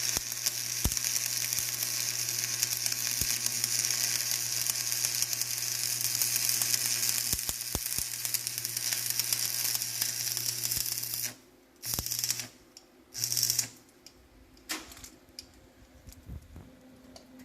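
Electric arc welding on a steel gas pipe: a steady crackling sizzle of the arc over a low hum. The arc stops about eleven seconds in, strikes up twice more briefly, then gives way to quiet with a few small clicks.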